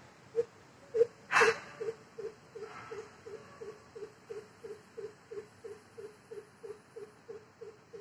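Greater coucal calling: a long, even series of low hollow hoots on one pitch, about three a second, the first few loudest. A sharp noisy burst, the loudest sound, comes about a second and a half in.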